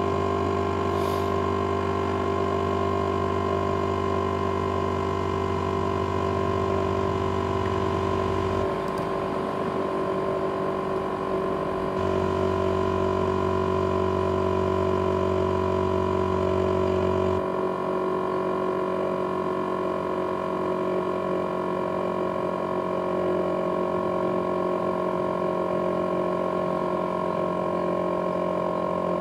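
ASUS X543UA laptop's cooling fan running flat out with a steady, many-toned whine that the owner likens to a jet engine. A low hum beneath it drops out about nine seconds in, comes back about three seconds later and drops out again near the middle.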